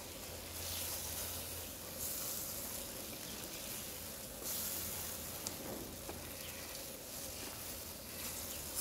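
Bacon strips and onions sizzling as they fry in a grill-mat tray on a gas grill. The sizzle swells and fades as the bacon is turned with tongs, with a couple of light clicks midway.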